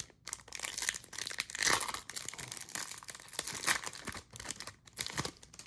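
Foil wrapper of a trading-card pack torn open and crinkled, an irregular run of crackling and tearing noise.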